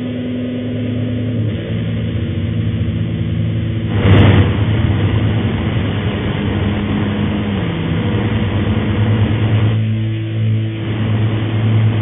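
Electronic static: a steady hiss over a low hum with a few held tones, one of which slides down slightly about seven and a half seconds in. There is a louder burst of crackling noise about four seconds in.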